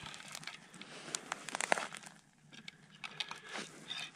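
Irregular small clicks and crunches as a wooden ice-fishing tip-up is handled and set over a hole ringed with broken ice and slush, its flag wire bent down and clipped into place.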